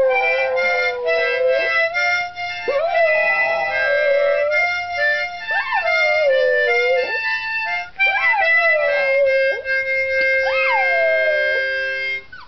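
A dog howling along to a harmonica. About five long howls, each rising sharply and then sliding slowly down, over steady held harmonica chords.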